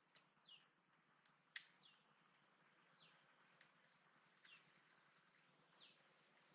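Near silence with faint bird calls: a short chirp falling in pitch, repeated about five times, and a few soft clicks.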